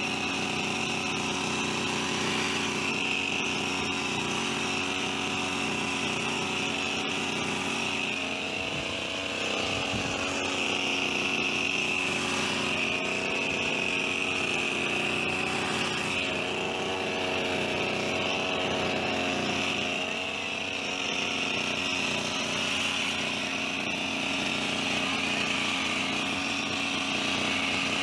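Petrol hedge trimmer's small engine running at high speed, with its pitch and level dipping briefly twice.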